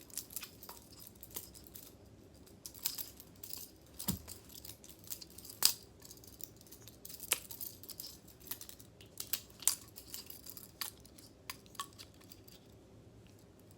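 Homemade butterfly knife built from Meccano-style metal parts being flipped open and shut, its metal handles clicking and clinking irregularly, with one louder clack about halfway through.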